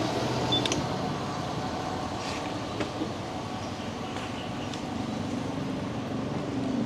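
Motorbike engine idling with a steady low hum, with a few light clicks over it.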